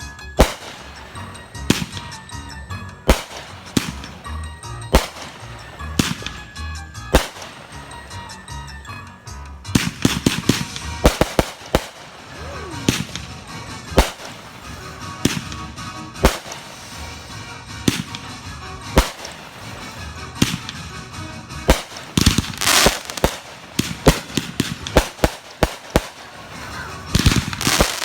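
Consumer fireworks going off: a string of sharp bangs and crackles, spaced a second or two apart at first, then coming thick and fast from about ten seconds in, with dense bursts near the end.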